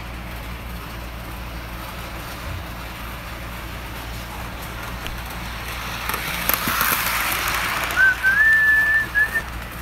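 A person whistles one short note in imitation of a locomotive whistle near the end, sliding up in pitch and then holding. Before it, the running noise of a Hornby OO gauge Silver Link model locomotive swells, with a steady low hum throughout.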